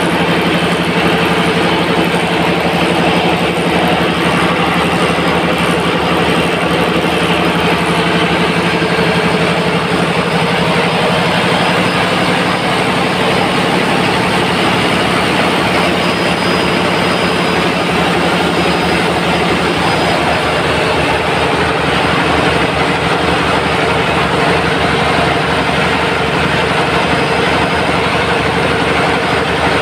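Multi-cylinder diesel engine running at a steady speed, a loud even mechanical drone with a constant low hum.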